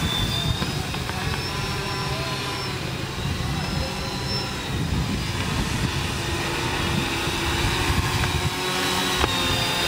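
Small electric propeller motors of a homemade quadcopter drone car running in flight, a high whine whose pitch wavers as the throttle changes, over a steady low rumble.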